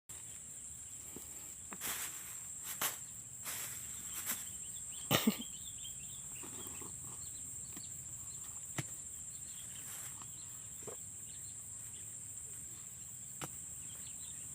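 Insects, likely crickets, making a steady high-pitched buzz that does not let up. A few sharp knocks and short rustles stand out in the first five seconds.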